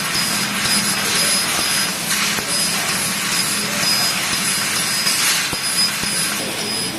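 CNC metal laser cutting machine at work: a loud, steady hiss with a low hum underneath and faint short high tones repeating.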